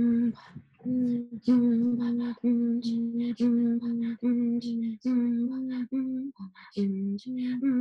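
Inuit throat singing (katajjaq) by a woman and a child face to face: a rhythmic run of short hummed tones of steady pitch, about two a second, with short breathy sounds between them. The pitch drops lower near the end.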